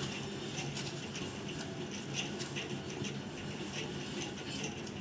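Alexandrine parakeet nibbling and cracking a cashew with its beak: scattered small crunches and clicks over a steady low hum.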